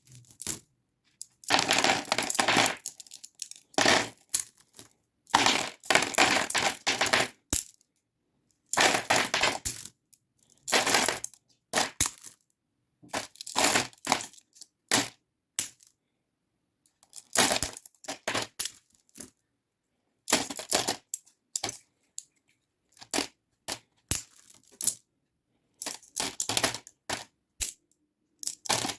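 Slime being squeezed and pressed by hand, giving repeated bursts of crackling and popping about a second long, with silent gaps between them.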